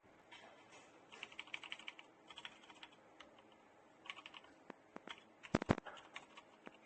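Mechanical keyboard with TTC Matrix 01 switches being typed on: runs of quick key clicks, with a few louder key strikes near the end.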